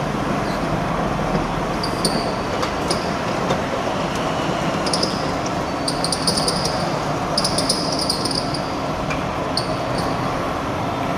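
Motorised steel rolling shutter running as it rolls up: a steady mechanical noise of the motor and coiling slats, with scattered metallic clicks and rattles.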